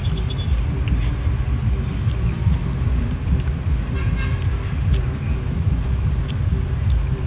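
Low, uneven outdoor rumble, with a few faint high chirps about four seconds in.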